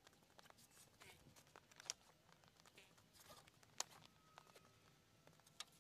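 Near silence outdoors, broken by a few faint, scattered clicks and light crunches.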